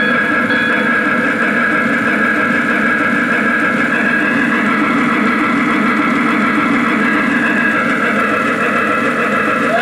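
Lionel Pennsylvania CC2 0-8-8-0 steam switcher model's onboard sound system playing steady standing-idle steam sounds: an even hiss and rumble with no chuffing. The hooter whistle just comes in at the very end.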